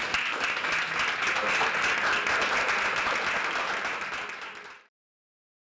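Audience applauding in a dense patter of claps that dies away near the end and then cuts off.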